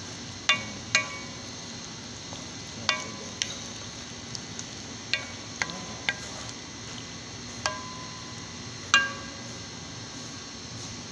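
A wooden spatula stirring sweet and sour shrimp in a thick simmering sauce, knocking against the pan about ten times at irregular intervals, each tap leaving a brief ring, over a faint steady sizzle.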